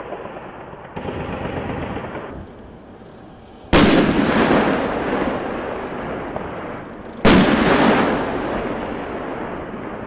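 Two heavy blasts of live fire about three and a half seconds apart, each a sudden sharp crack followed by a long rolling rumble that fades over about three seconds.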